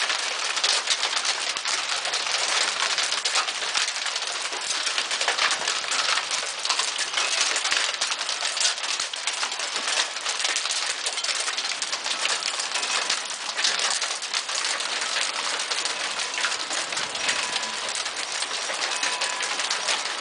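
Small hailstones mixed with rain falling on a wooden deck, a dense, steady pattering of countless small ticks and clicks on the boards.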